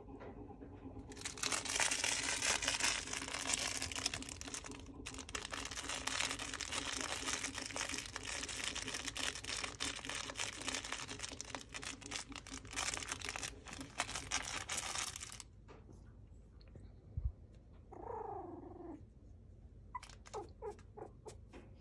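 Crinkly rustling of a plush fabric toy being handled, loud and full of quick crackles for most of the first fifteen seconds. After it stops, a newborn puppy gives one falling whimper, then a few short squeaks near the end.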